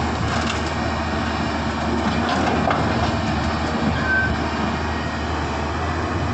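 Hydraulic excavator's diesel engine running steadily under load while it digs soil and loads a truck, with a few faint knocks.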